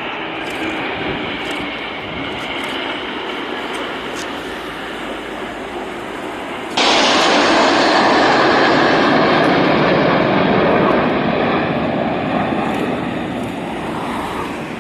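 Jet engine roar from the Red Arrows' BAE Hawk jets. About seven seconds in the roar jumps suddenly louder, then slowly eases off toward the end.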